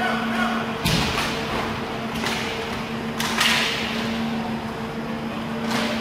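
Inline roller hockey play in a rink with a steady low hum. A heavy thud comes about a second in, and further sharp knocks follow around two seconds, three and a half seconds and near the end, typical of sticks, puck and players hitting the boards.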